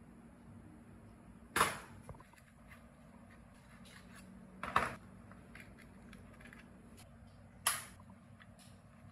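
Three sharp metallic knocks about three seconds apart, each ringing briefly, as a steel screwdriver works against the dented sheet-metal capacitor cover on a small electric motor's casing, over a faint low hum.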